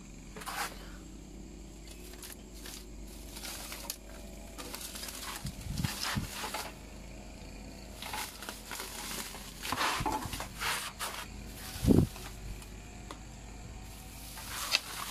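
Black plastic shade netting rustling and crackling in short bursts as it is pulled and rummaged through by hand, with a single loud, dull thump about twelve seconds in.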